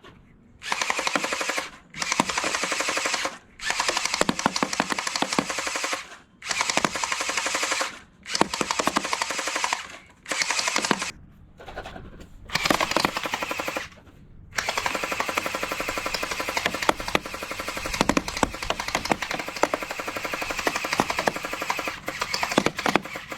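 Electric gel ball blaster pistol firing on full auto, a rapid stream of shots in about eight short bursts separated by brief pauses, then one long continuous burst of several seconds near the end.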